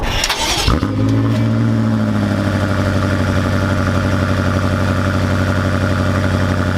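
A 2017 BMW X6 M's twin-turbo V8 starting up, heard from behind at the quad exhaust tips. It catches about a second in, and its revs ease down over the next second or so into a steady idle.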